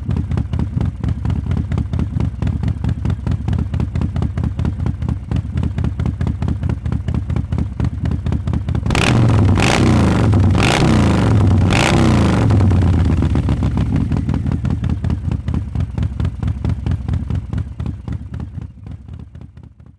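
2020 Harley-Davidson Fat Boy's Milwaukee-Eight V-twin idling with an even pulsing beat. Partway through it is blipped in about four quick revs, then settles and dies away near the end.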